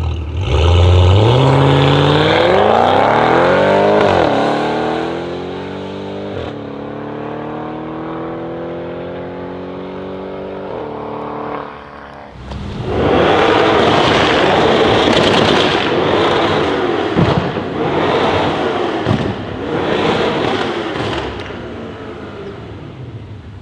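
Straight-piped Audi S7's twin-turbo V8 accelerating hard away, its pitch climbing and dropping with three upshifts as it fades into the distance. Then the car comes on again loud and rough under throttle, with a couple of sharp exhaust pops.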